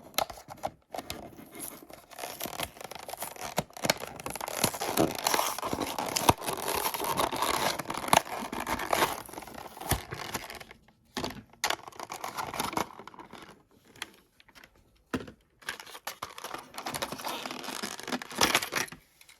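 Toy packaging being torn and crinkled open by hand: cardboard and plastic ripping, crackling and scraping, with a couple of short pauses partway through.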